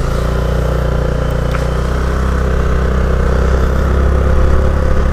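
Vehicle engine running steadily at one pitch just after being started, getting slowly louder.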